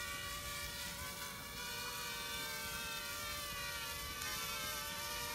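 Eachine E70 mini quadcopter's four small motors and propellers whining steadily as it hovers low, the pitch wavering slightly as it holds its position.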